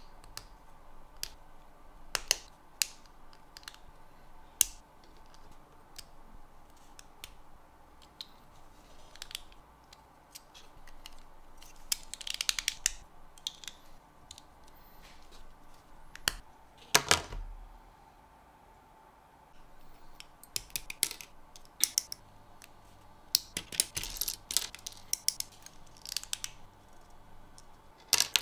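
Small plastic model-kit parts being handled and pressed together by hand: scattered light clicks and snaps, a few short rattly runs of clicking, and one louder snap a little past halfway, over a faint steady hum.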